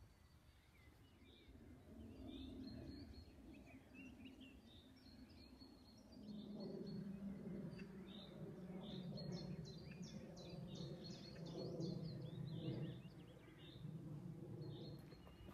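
Birds chirping and singing outdoors, with a low steady rumble underneath that comes in more strongly about six seconds in.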